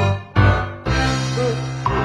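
Music track: it drops out briefly about a quarter second in, comes back with a sharp loud attack, then carries on with held low notes.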